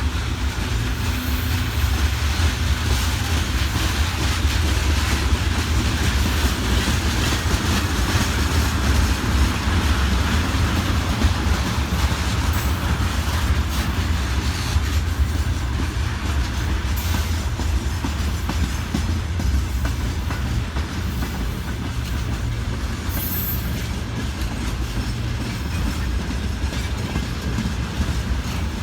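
Freight train rolling past at a steady pace, with a low rumble throughout and a couple of brief high squeaks.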